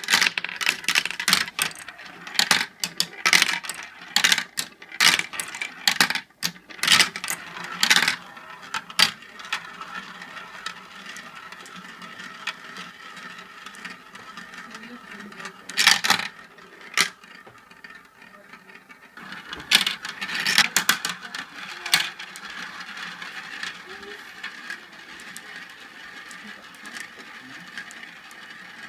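Marbles rolling and clacking down a marble run: a rapid run of sharp clicks and clatters at first, then a steady rolling rattle, broken by clusters of clacks about halfway through and again past two-thirds of the way.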